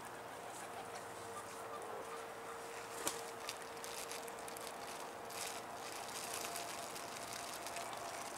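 Quiet outdoor riverside ambience: a steady background hiss with a faint steady hum, and a few sharp clicks about three seconds in.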